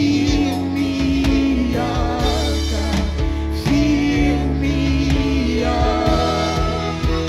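Live gospel worship music: a woman singing lead with backing singers over a church band of bass guitar, drums and keyboard, with long held notes.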